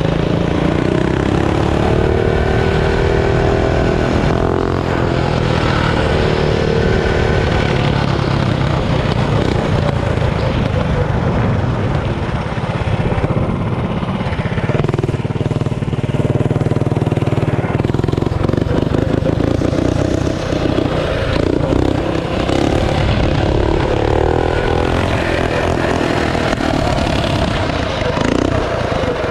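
Single-cylinder Tillotson 212 stage-two mini bike engine with an aftermarket header pipe, running under way as the bike is ridden, its revs rising and falling with the throttle.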